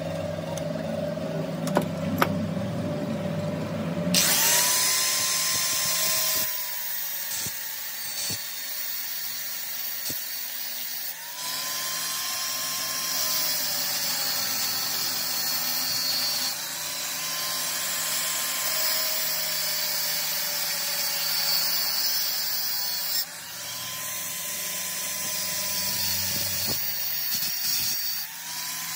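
Angle grinder with an abrasive disc cutting into a steel 420-14T chain sprocket clamped in a vise, starting about four seconds in: a loud hissing grind over the motor's whine, which sags as the disc bites and recovers several times. Before that, a lower hum with a couple of sharp clicks.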